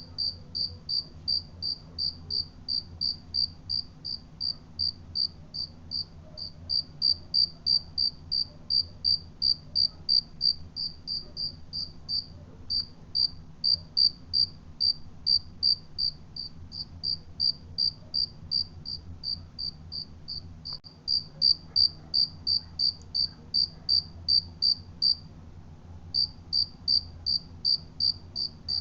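A cricket chirping steadily, about three high-pitched chirps a second, with a short pause about four seconds before the end.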